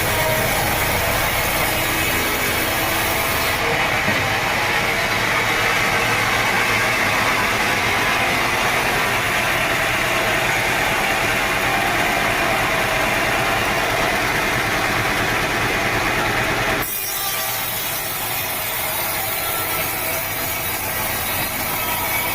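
Sawmill saw cutting through a teak log, a continuous rasping sawing noise with machinery running under it. About 17 seconds in the sound changes abruptly and becomes slightly quieter.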